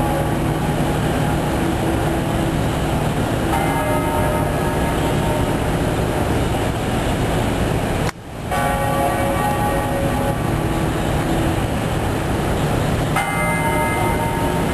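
A large memorial bell tolled slowly, struck about every four to five seconds, three times, each strike ringing on over a steady rumble of street noise. The sound drops out briefly about eight seconds in.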